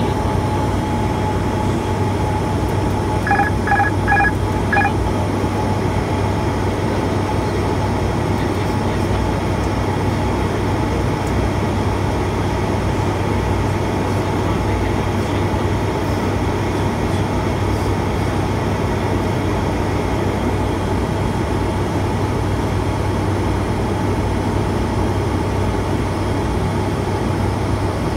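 Steady drone of the ATR 72-600's Pratt & Whitney PW127 turboprop engines and propellers, with airflow noise, heard inside the cockpit on approach. About three seconds in, four short electronic beeps sound in quick succession.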